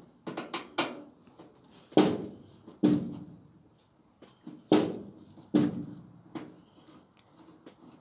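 Sharp knocks and clicks from a screwdriver working a side screw on a Westinghouse clothes dryer's control-panel front. There are about seven in all, irregularly spaced, the loudest about two seconds in and near the middle.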